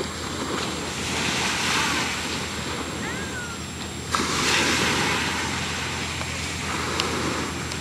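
Choppy ocean water washing and splashing with wind on the microphone, swelling sharply about four seconds in, over a steady low hum.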